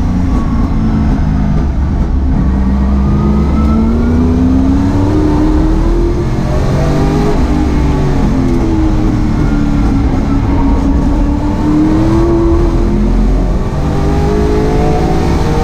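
Holden Commodore race car's engine heard from inside the cockpit, running hard under load, its note climbing for several seconds at a time and dropping back twice as the driver eases off or changes gear.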